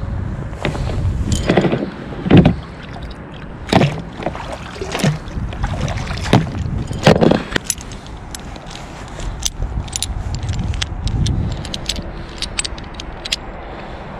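A kayak's folding grapnel anchor and its chain being hauled aboard: several heavy knocks and clanks as the metal comes in, then many quick metallic clicks and clinks from about nine seconds in as the chain links rattle and the anchor's flukes are folded up.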